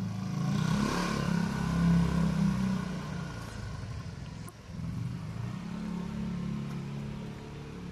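Modified Yamaha Mio Soul scooter, its stock 115cc engine bored out to 150cc with racing cams and a V8 aftermarket exhaust, accelerating away. The engine note fades over the first few seconds, then is heard again more faintly from about five seconds in.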